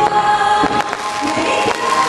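Music with singing, with a few sharp firework cracks over it.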